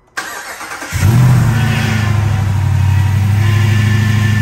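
Swapped-in 392 Hemi V8 (6.4-litre) starting for the first time after the engine conversion: the starter cranks for under a second, then the engine catches with a brief rev flare and settles into a steady idle.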